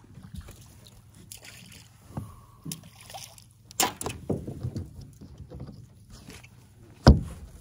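Scattered knocks and bumps from gear being handled on a boat deck, with a sharp thump about seven seconds in.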